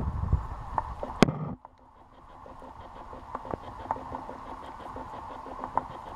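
Kitten licking and biting an ice cube held in a hand, making small wet clicks and ticks of tongue and teeth on the ice. For the first second and a half a low rumble runs under it, the kitten growling over the ice as if it were meat. The rumble cuts off suddenly.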